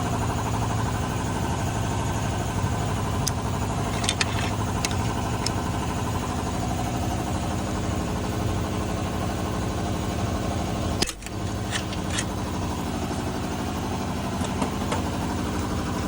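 Steady low mechanical hum of a running engine or motor, with a few short clicks over it and a brief drop in level about eleven seconds in.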